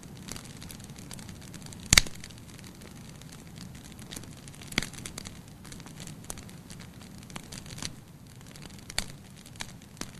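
Wood fire in a fireplace crackling: a steady low rush of flames with scattered small clicks and a few sharp pops, the loudest about two seconds in, others near five and nine seconds.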